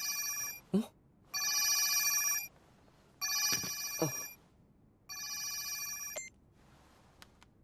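Mobile phone ringtone ringing: an electronic trill of about a second, repeated four times with short pauses, stopping about six seconds in as the call is picked up. Two brief voice sounds fall between the rings, and a few faint clicks come near the end.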